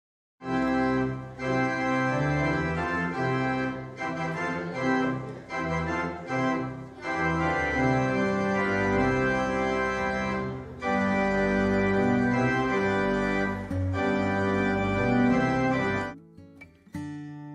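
Organ music playing sustained chords, which stops abruptly about a second and a half before the end, where a quieter piece of music begins.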